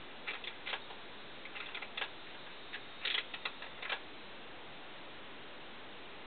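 A scatter of light clicks and taps from hands turning and gripping a wood-handled kitchen knife, over a steady hiss; the clicks stop about four seconds in.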